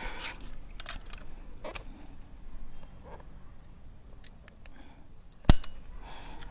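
A single sharp shot from a multi-pump pneumatic bullpup air rifle about five and a half seconds in, preceded by a few light clicks and rustles of handling.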